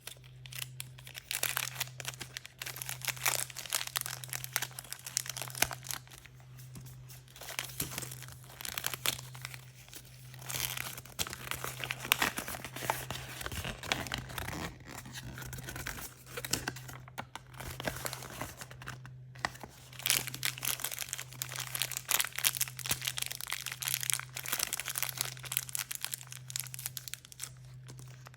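Blind-bag toy packaging being crinkled and torn open by hand: irregular crackling and ripping with brief pauses, over a faint steady low hum.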